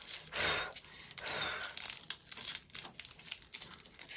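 Foil wrapper of a Match Attax trading-card booster pack crinkling as hands work it open, with irregular rustles and crackles, the loudest about half a second in.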